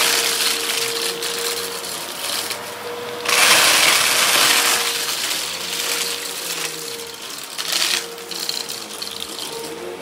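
Upright vacuum cleaner running over a rug with a steady motor whine, surging into a louder rush at the start, again from about three to five seconds in, and briefly near eight seconds as it is pushed across the carpet.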